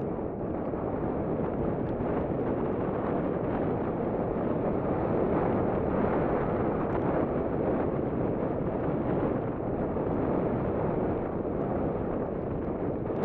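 Steady wind noise on the microphone over the rough rumble of a 2011 Cannondale Jekyll mountain bike's tyres and suspension rolling fast over rocky singletrack.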